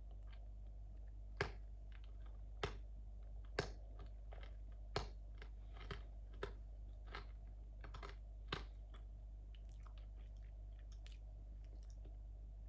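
Irregular sharp clicks and crunches, about nine louder ones spread over the first nine seconds and only faint ones after, over a steady low hum.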